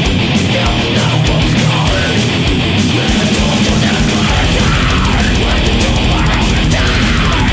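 Death metal music: heavily distorted guitars and drums played at a loud, steady level, the low end turning to a fast, dense pulse about four seconds in.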